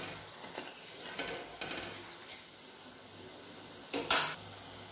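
Flat metal spatula scraping and stirring thin sugar syrup in a metal kadai, in a few soft strokes. Then the syrup boils with a faint steady bubbling, broken once about four seconds in by a short, sharp knock.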